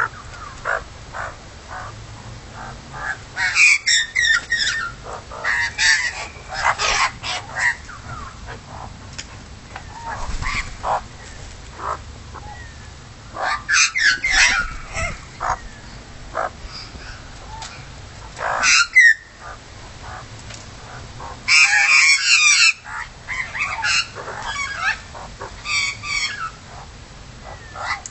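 Magpies calling in clusters of short, sharp calls a few seconds apart.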